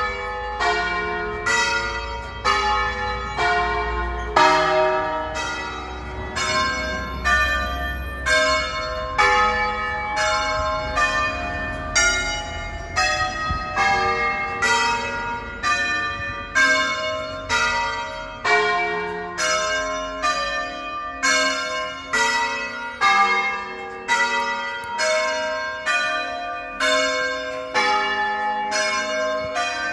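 Church tower bells of a tuned ring in E-flat, rung by a team of ringers in the Veronese concert style on the nine largest bells. The bells strike one after another in a melodic sequence, about two strokes a second, each note ringing on into the next.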